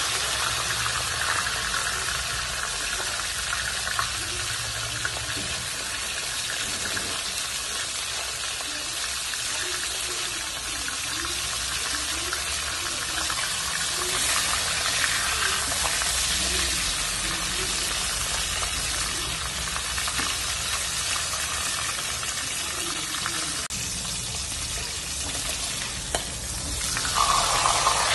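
Hilsa fish heads frying in hot oil in a steel karahi: a steady sizzle, with light stirring from a metal spatula. The sizzle gets louder near the end.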